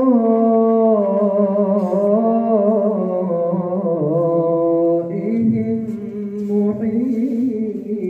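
A young man's voice reciting the Quran in melodic tajwid style into a microphone, drawing out long, wavering, ornamented notes that step down in pitch. A new phrase begins about five seconds in.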